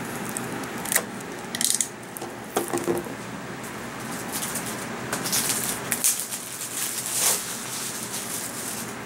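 Cellophane shrink wrap being torn and peeled off a plastic Blu-ray case: crinkling rustles with a few sharp clicks and taps, the longest crinkling stretch in the second half.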